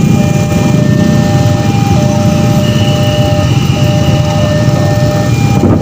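Many motorcycle engines idling and revving together at a railway level crossing, a dense, rough rumble, with steady electronic warning tones sounding over them in segments that start and stop at different pitches.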